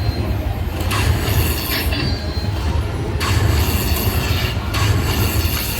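Lightning Link slot machine playing its Hold & Spin bonus sounds: a steady low rumble with bright, chiming high layers that cut in and out about once a second.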